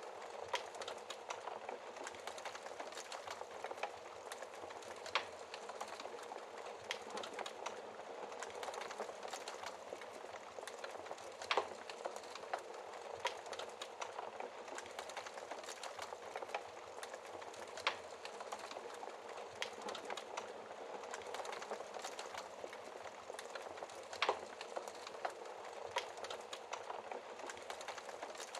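Wood fire in a fireplace crackling steadily, with a few sharper pops scattered through it.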